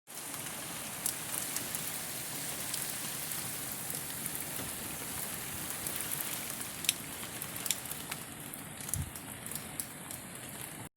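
Heavy rain pouring steadily, with sharp drop impacts ticking close by throughout; it cuts off suddenly near the end.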